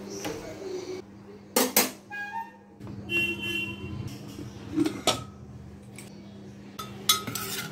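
Dishes and utensils clinking and knocking a few times, about a second and a half in, around five seconds and again near the end, as rice and chicken are dished out.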